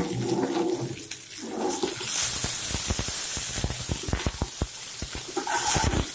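Broccoli sizzling as it fries in hot oil in a steel wok, with a metal slotted spatula scraping and clacking against the pan as it is stirred. The hiss is loudest about two to three seconds in, and the quick clicks of the spatula run on to the end.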